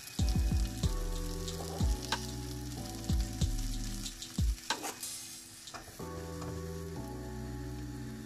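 Strips of vegetable frying in oil in a frying pan, sizzling and crackling, with a short louder burst of sizzle about five seconds in. Background music with held chords and a soft beat plays along.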